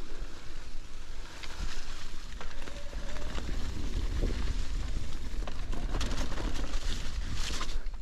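Wind buffeting the microphone of a mountain bike rider's camera, heavier from about three seconds in, over the tyres of an Orbea Rise e-mountain bike rolling across leaf-covered dirt and rock, with scattered clicks and rattles from the bike.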